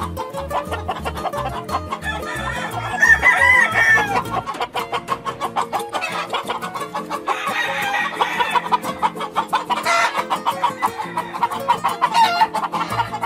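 A gamecock crowing, once about three seconds in and again about seven seconds in, over background music with a steady beat.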